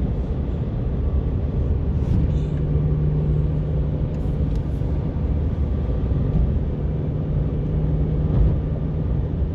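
Steady low mechanical rumble, with a constant low hum setting in about two seconds in.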